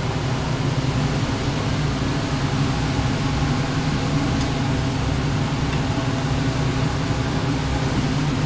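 A steady low mechanical hum that holds an even level throughout, with no clear knocks or changes.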